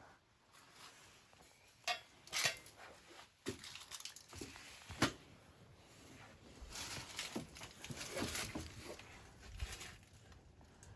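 Faint scattered clicks and knocks, with a stretch of soft rustling in the middle.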